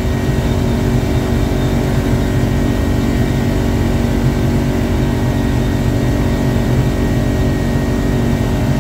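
Yamaha 200 hp outboard engine running flat out at wide open throttle, about 5,500 to 5,600 rpm, a steady drone over a constant rush of noise as the boat planes at about 31 mph. It is turning a lower-pitch 14.5 x 15 inch propeller, which lets it reach these higher revs.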